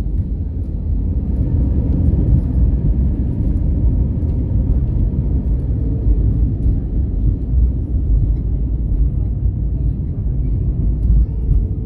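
Airbus A320 landing rollout heard from inside the cabin: a loud, steady low rumble of the engines and the wheels rolling on the runway.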